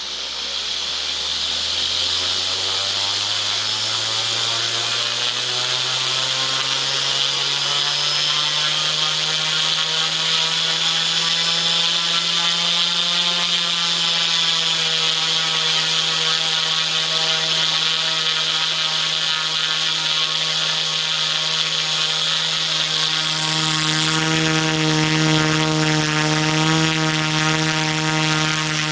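Multicopter brushless motors and propellers running up under throttle, a hum with a hiss over it whose pitch climbs steadily for about twelve seconds and then holds. A few seconds before the end the note shifts and grows a little stronger.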